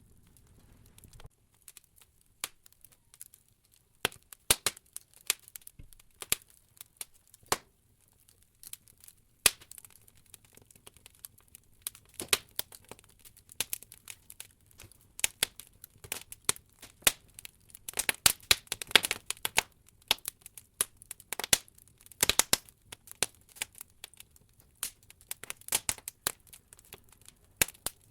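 Wood logs burning in an open fireplace, crackling and popping at irregular intervals. The pops are sparse at first and come much thicker and faster in the second half.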